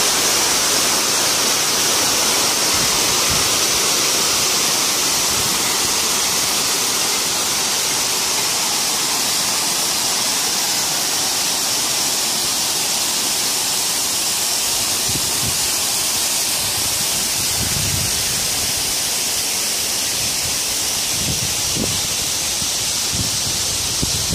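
Artificial waterfall pouring in a sheet over a stone wall into a rocky pool: a steady rushing of falling water that slowly gets a little quieter. A few low thumps come in the second half.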